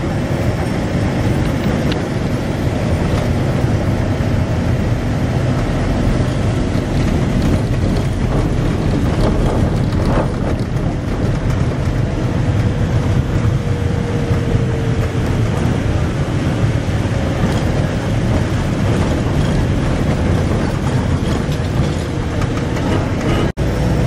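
Steady engine and road noise heard from inside a moving safari vehicle, with a brief dropout near the end.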